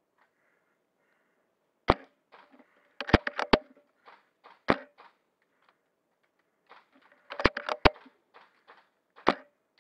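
Airsoft gunfire: sharp cracks, a single one about two seconds in, a quick burst of four or five around three seconds, single ones near five seconds and near the end, and another quick burst around seven and a half seconds.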